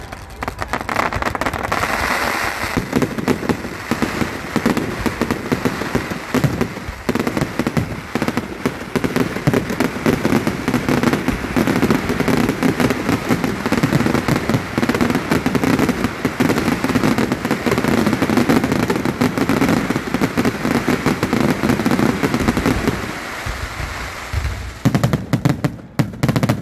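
Fireworks display: a dense, continuous barrage of bangs and crackles that eases near the end, followed by a last short cluster of sharp bangs.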